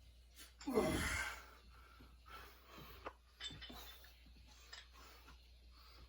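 A loud grunting exhale from a lifter straining through a rep, about a second in, followed by faint breathing and a few light knocks.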